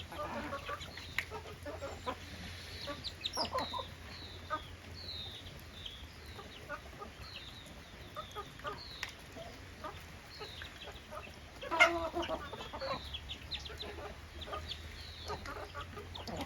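Desi chickens clucking, with many short, high, falling peeps repeating throughout and one louder call about twelve seconds in.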